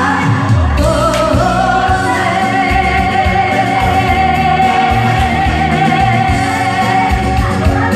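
A singer holds one long note, from about a second and a half in until near the end, over band accompaniment with a steady low beat.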